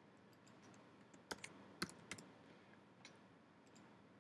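A few faint computer keyboard keystrokes, about four short clicks between one and two seconds in, over near-silent room tone.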